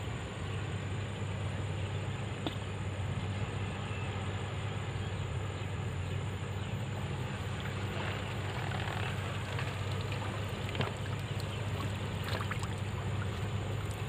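Steady low hum running without a break, with a constant high insect drone over it and a few faint clicks.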